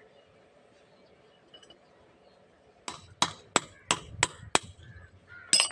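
Sharp metal-on-metal hammer blows, six in quick succession at about three a second, then one more near the end, knocking a broken wheel bearing out of an auto-rickshaw's wheel hub.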